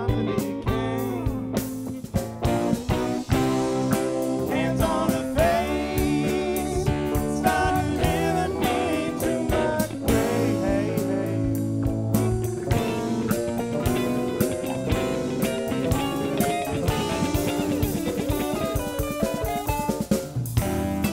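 Live band playing: electric guitar lines over drum kit and bass guitar.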